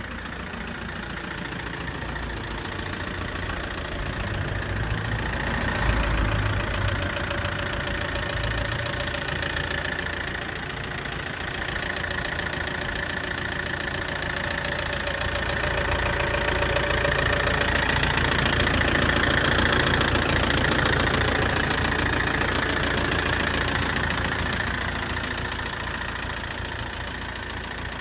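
Car engine running with a loud, rapid clicking that started after an accident; it swells louder a few seconds in and again through the second half.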